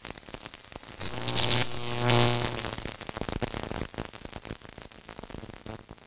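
Neon-sign sound effect: electrical crackling and static, with a burst of hiss about a second in and a loud buzzing hum around two seconds in, then sparse crackles fading out.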